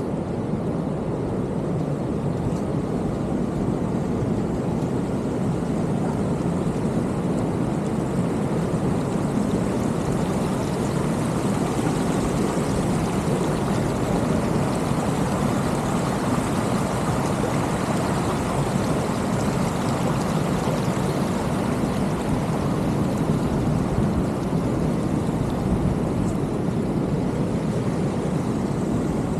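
Ocean surf breaking on the beach, a steady rushing noise.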